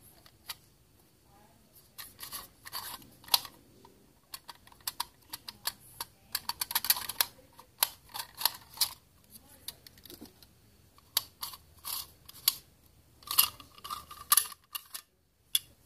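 Irregular plastic clicks, snaps and scraping from the sections of a Nikon Coolpix P900 zoom lens barrel being twisted and pulled apart by hand, with clusters of louder clicks a few seconds in, around the middle and near the end.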